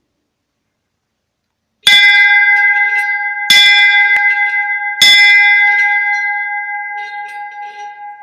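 A bell struck three times, about a second and a half apart, each stroke ringing on with a clear steady tone that slowly fades.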